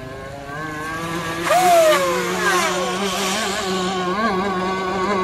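Small two-stroke gasoline engine of an RC speedboat running at high speed on the water, its pitch wavering up and down. About a second and a half in it turns sharply louder, with a falling glide in pitch.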